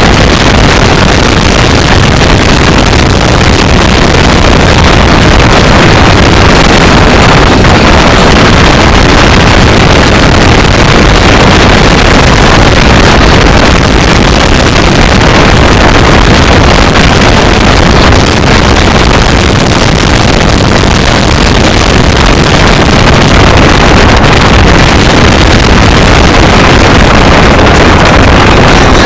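Car engine and wind noise heard from inside the cabin as the car is driven at speed on a racetrack, loud and steady throughout and overloading the recording.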